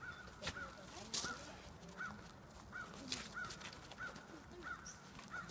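An animal's short, high call repeated steadily, about three times every two seconds, with a few sharp knocks, the loudest about a second in.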